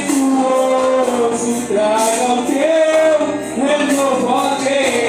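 Live worship music: singers holding long sung notes over a band, with the sound of a large hall.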